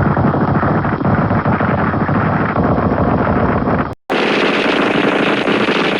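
Sound-effect recordings of battle gunfire: rapid automatic fire that cuts off abruptly about four seconds in, then after a brief gap a second recording of dense gunfire begins.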